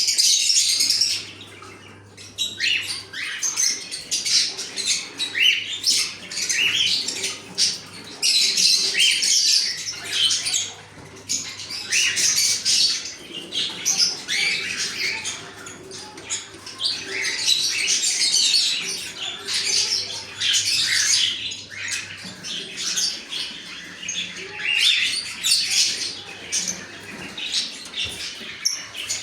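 A flock of small caged parrots, budgerigars and cockatiels, chattering and chirping together in rising and falling waves of calls. A low steady hum under the birds cuts out and comes back several times.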